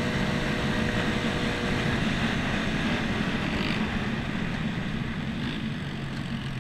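Single-cylinder four-stroke Honda dirt bike engine running under way, heard from the handlebars with wind rushing over the microphone; the engine eases off toward a lower, steadier note near the end as the bike slows.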